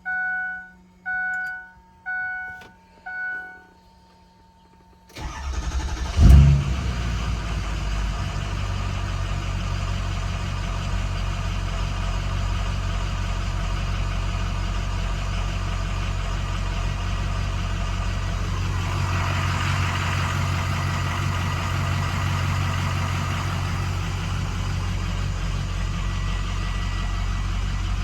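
Four electronic two-tone chimes about a second apart, then a 2006 6.0L Power Stroke V8 diesel cranks briefly and fires about six seconds in with a loud burst, settling into a steady idle. It is starting with its injection control pressure (ICP) sensor unplugged.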